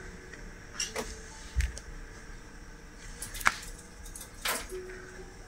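A few scattered light clicks and rattles of small plastic diamond-painting drills and tools being handled, most likely drills picked up with a multi-placer applicator pen from the tray.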